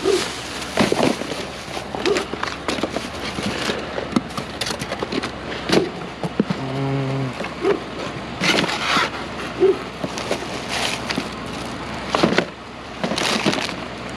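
Rummaging through a tote of discarded items: an irregular clatter of plastic and hard objects being handled and knocked together, with a rustle now and then.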